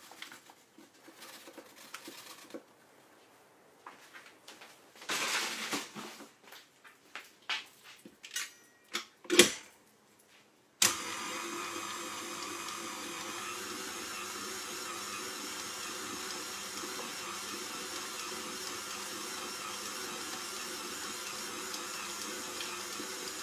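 Rustling of a paper flour bag and scattered clicks, with one sharp loud click, then a KitchenAid tilt-head stand mixer starts abruptly about eleven seconds in and runs steadily, kneading a yeast dough for pastries.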